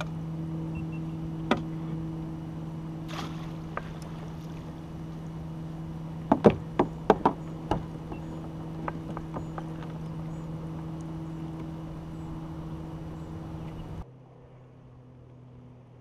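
Steady hum of a small motor driving the fishing kayak, with a quick cluster of sharp knocks and clatters of gear on the hull about six to eight seconds in. The hum cuts off suddenly near the end, leaving a fainter, lower hum.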